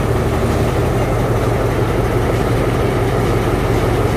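Alsthom diesel-electric locomotive idling at a standstill, its engine giving a loud, steady low hum.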